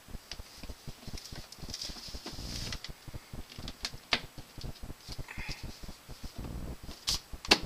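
Scattered clicks, knocks and rustling as plug connectors are pushed into a sump pump's battery backup case, with a couple of sharp clicks near the end.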